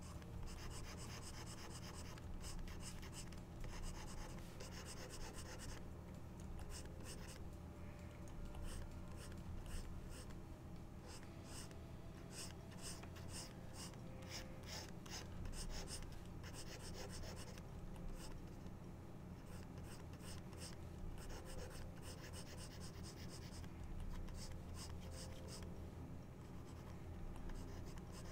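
Stylus scratching on a drawing tablet's surface in runs of quick short sketching strokes, with brief pauses, over a low steady hum.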